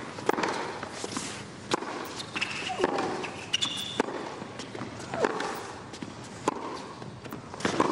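Tennis rally on a hard court: sharp racket-on-ball hits and ball bounces about every second, with a player's short grunt on several strokes.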